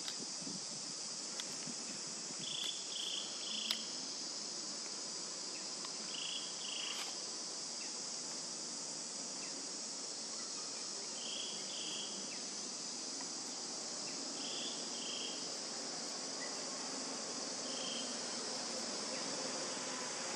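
Steady, high-pitched chorus of insects such as crickets, with short chirps in twos and threes every few seconds over it.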